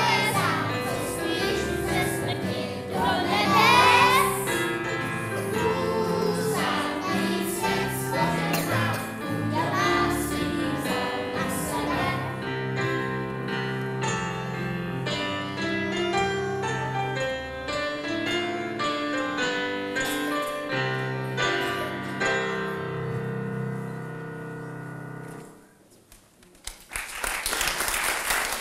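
Children's choir singing a song with electric keyboard and double bass accompaniment. The music ends a couple of seconds before the close, and after a brief hush the audience starts applauding.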